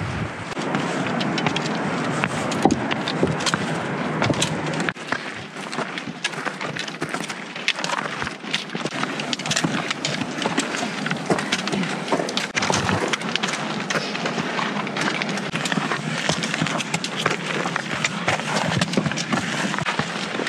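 Footsteps scuffing and crunching on a rocky trail, with clothing and gear rustling: an uneven run of small clicks and scrapes.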